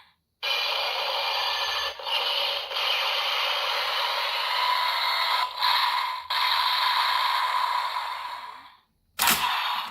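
DX Cyclone Riser toy belt playing an electronic sound effect through its small speaker: a dense rushing noise with a steady held tone that starts abruptly, lasts about eight seconds and fades away, followed by a short second burst near the end.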